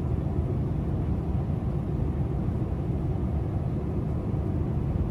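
Steady low rumble of a Boeing 747-400 cabin in flight, the engine and airflow noise heard from inside the cabin.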